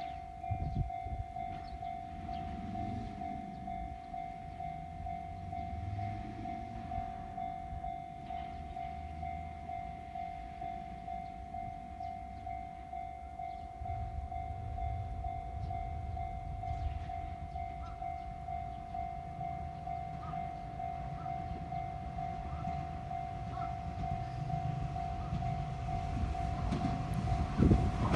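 Level-crossing warning bell ringing on and on in a steady rapid pulse, with the low rumble of an approaching train growing louder near the end.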